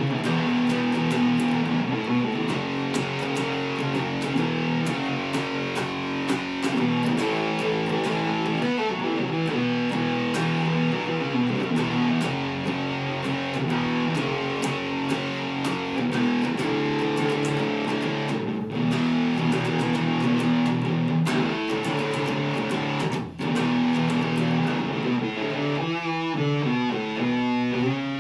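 Mexican-made Fender Stratocaster electric guitar played on its Lace Sensor bridge pickup alone, with the tone knob turned all the way down, running through chords and single notes.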